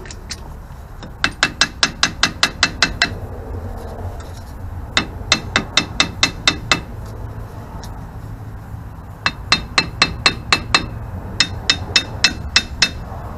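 Light, quick hammer taps, metal on metal with a ringing tone, on the flange of a Mopar 8 3/4 rear axle shaft. They come in four runs of about eight strikes, roughly five a second. The shaft is being tapped to drive it fully into the housing but won't seat, which is suspected to be the thrust button getting in the way.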